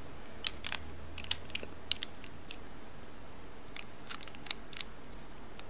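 Small plastic toy pieces clicking and tapping as they are handled, with a dozen or so light, irregular clicks.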